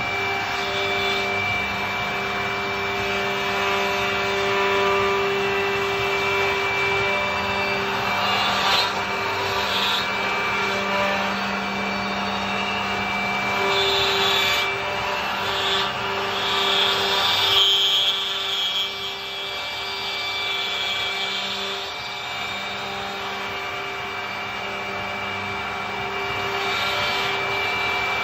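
Andreoni Standard 12 multi-spindle copy-milling machine running: the spindle motors hum steadily while the cutters mill a row of wooden blanks, with a rasping cutting noise that rises and falls as the tracer is guided over the pattern.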